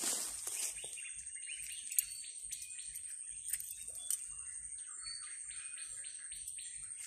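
Small birds chirping in a string of short, quick notes, over a faint steady high-pitched whine. A brief rustle comes in the first second.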